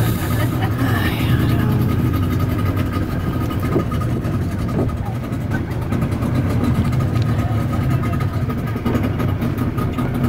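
A boat's engine running steadily: a low drone with a thin, constant whine above it.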